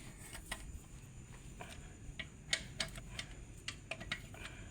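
A scattered, irregular series of light clicks and taps from small metal parts and tools being handled during work on a Mitsubishi Canter truck transmission.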